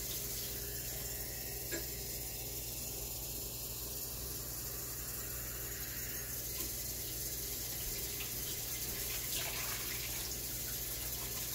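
Ultrasonic cleaner running with shotgun parts in a Ballistol bath, a steady hum and hiss from the tank. Near the end, liquid is poured from a cup into the tank.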